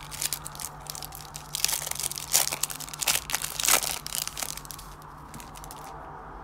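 Foil wrapper of a Match Attax trading-card pack being torn open and crinkled by hand, a dense crackling that is loudest from about one and a half to four seconds in, then dies down as the cards are drawn out.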